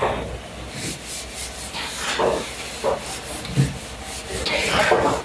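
Vertical form-fill-seal packing machine running, with a rasping, rubbing noise and many quick clicks as it pulls and seals the plastic film for the oil pouches.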